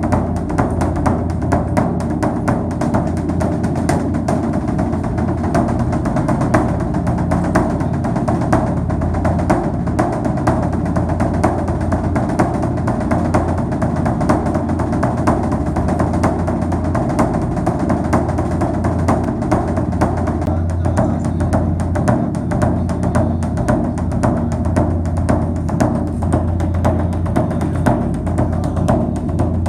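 Background music with a steady, dense drum beat and a sustained low tone underneath.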